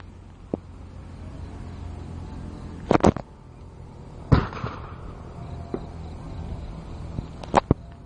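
A handful of sharp cracks or pops over a steady low rumble: a quick pair about three seconds in, a louder single bang with a short fading tail a little after, and another quick pair near the end.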